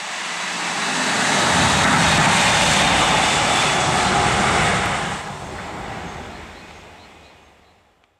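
Electric locomotive running light past at speed: a rush of wheels on rail with a deep rumble that swells, stays loud for a few seconds, then drops sharply about five seconds in and fades away.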